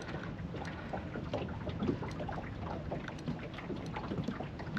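Light irregular splashing and knocking of water around a small fishing boat, with a faint breeze on the microphone.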